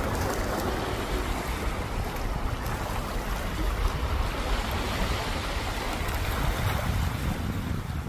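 Sea waves washing steadily onto a shore, with wind rumbling on the microphone.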